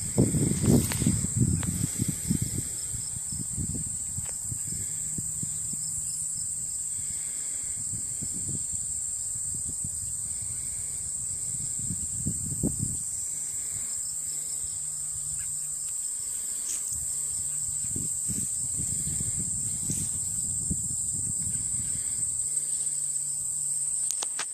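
Steady, high-pitched drone of a late-summer insect chorus from the trees and grass, with patches of low rumbling on the microphone in the first few seconds and again later.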